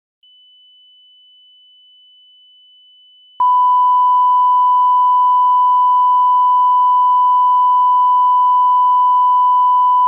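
Emergency alert tone: a loud, steady single-pitch tone near 1 kHz that starts abruptly about three and a half seconds in and holds. A faint, high, steady tone lies underneath throughout.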